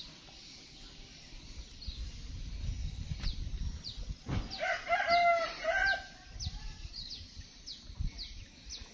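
A rooster crows once, about four and a half seconds in, a pitched call in several segments lasting about a second and a half. After it come short, high, falling chirps, about two a second.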